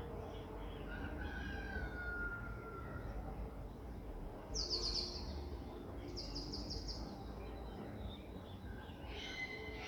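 Birds calling over a steady low rumble and hiss of light rain and distant thunder: a thin, slightly falling whistle about a second in, two quick high trills in the middle, and a burst of chirping near the end.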